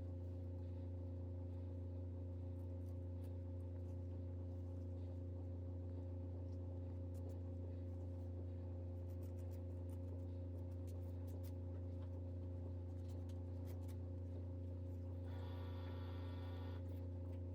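Steady low electrical hum throughout, with a few faint clicks and a short pitched tone about fifteen seconds in.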